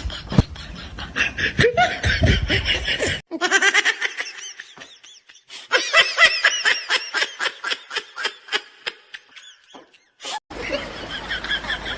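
Laughing in quick repeated bursts, several a second, broken by two abrupt cuts between clips.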